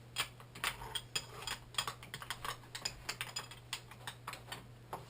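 Hand ratchet wrench clicking in a run of quick, uneven clicks as the pinch bolts of a motorcycle's rear chain adjuster are loosened.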